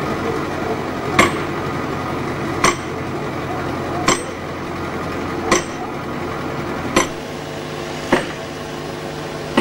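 Axe chopping into the base of a poplar trunk: six sharp strikes, about one every one and a half seconds.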